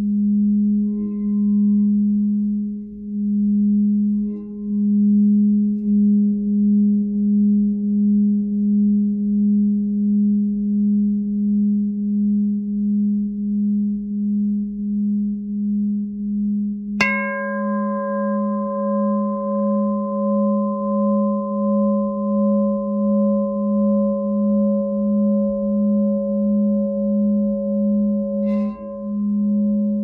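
Lemurian Seed platinum glass singing bowl sounding a sustained low tone that wavers in a slow, regular pulse, as when the rim is circled with a mallet. About halfway through it is struck once, adding a brighter set of higher ringing tones that hold on over the drone, and a lighter tap comes near the end.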